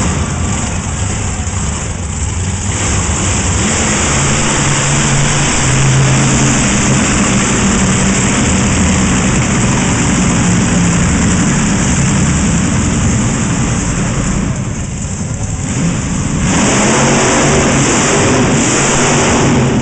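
Monster truck engine revving hard and loud on a wheelie run. It eases off for a couple of seconds about fifteen seconds in, then opens up again.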